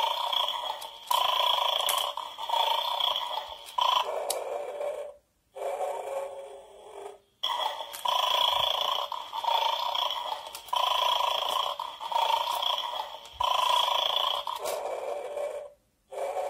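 Electronic bulldog toy from a bone-grabbing game playing its looped snoring sound effect through a small built-in speaker. The snoring comes in short repeated breaths, then a lower-pitched stretch and two brief breaks, and the cycle starts over about every seven and a half seconds.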